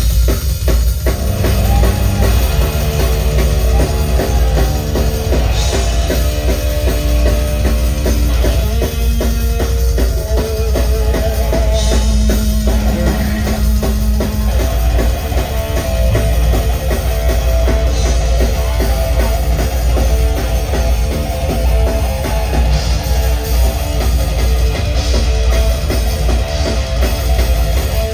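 Rock band playing loudly: pounding drum kit with bass drum, under sustained electric guitar and bass lines.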